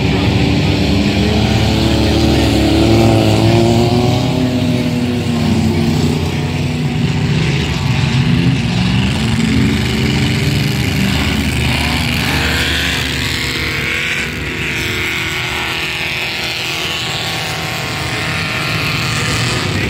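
Several racing trucks' engines running at speed together, their pitch rising and falling as they rev and pass, with no let-up.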